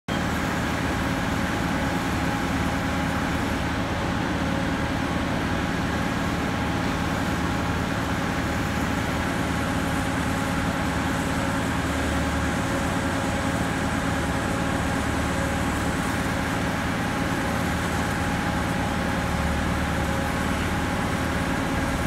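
Diesel engine of heavy pile-driving equipment running steadily at a constant speed, a loud, unchanging drone with several held tones.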